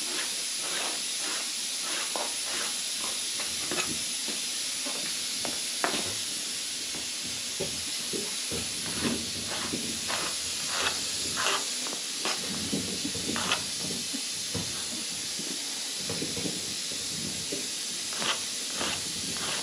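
A steady hiss, with irregular soft taps and pats as a round of dough is pressed and worked by hand on a cloth-covered board.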